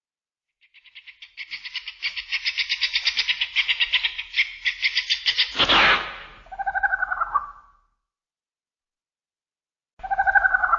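Kumonga the giant spider monster's screech: a rapid, high clicking chatter that swells over about five seconds and ends in a loud burst, followed by a shorter two-tone trill. After a pause, another two-tone trill comes near the end.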